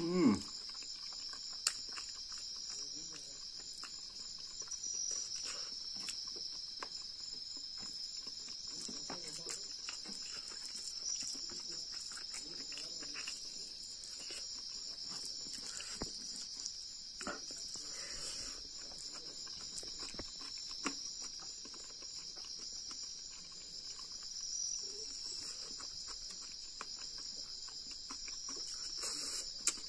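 Crickets chirring steadily, with soft chewing and eating-by-hand sounds close by. A short sound falling in pitch comes right at the start.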